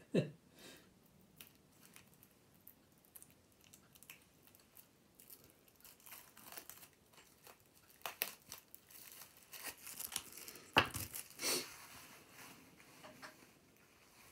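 Wrapping on a pack of game cards being torn open, with fitful crinkling and crackling and a few louder rips near the end.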